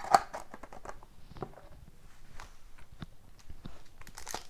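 Hands handling a cardboard trading-card box and foil card packs: one sharp tap just after the start, then scattered light clicks and rustles.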